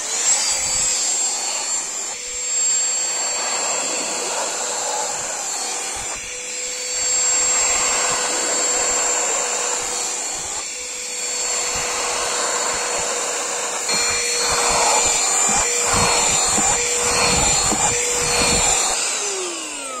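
XREXS cordless handheld vacuum running on car floor carpet: its motor reaches speed at the start with a rising whine, then runs steadily with a high whine while sucking up crumbs. A run of clicks and knocks comes in the last few seconds, and near the end the whine falls away as it is switched off.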